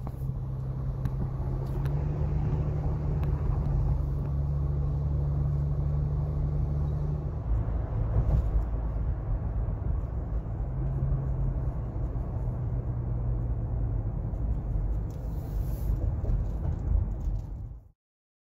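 Car driving at highway speed, heard from inside the cabin: a steady low rumble of engine and tyre noise. It cuts off abruptly shortly before the end.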